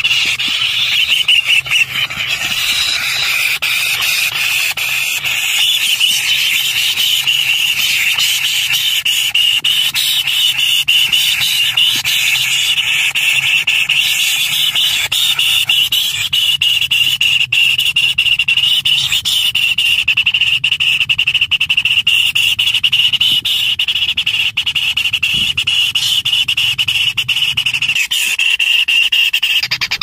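White-throated kingfisher nestlings begging: a steady, high-pitched chorus of rapid squealing calls that runs on without a break.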